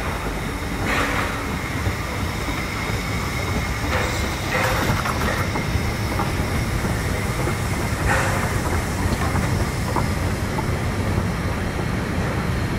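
DR class 99.23 2-10-2 tank steam locomotive working slowly past with its narrow-gauge train: a steady low rumble of engine and wheels, with short louder bursts about one, four and eight seconds in.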